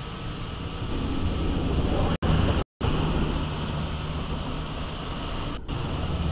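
Freight train's covered hopper cars rolling past on the rails, a steady low rumble. The stream's audio cuts out briefly twice, about two and a half seconds in.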